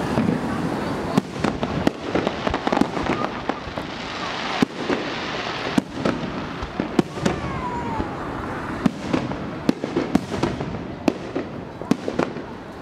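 Aerial firework shells bursting in a rapid, irregular series of sharp bangs, several a second at times, over a continuous background din.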